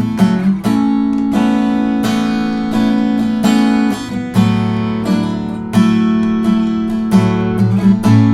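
Custom koa-wood acoustic guitar played, chords plucked and left to ring, with the bass notes changing underneath: a tone demonstration of a newly built guitar.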